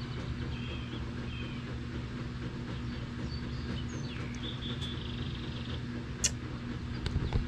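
Steady low hum with faint bird chirps and a short buzzing trill over it, and one sharp click about six seconds in.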